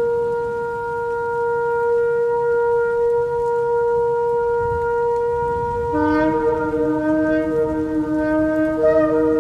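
Shofar blasts: one long, steady held note. About six seconds in, at least one more shofar joins at a different pitch, and the tones waver and overlap.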